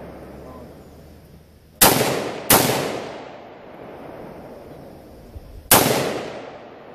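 Palmetto State Armory AR-15 rifle firing three semi-automatic shots: two about two-thirds of a second apart, then a third about three seconds later. Each crack rings out with a long fading echo.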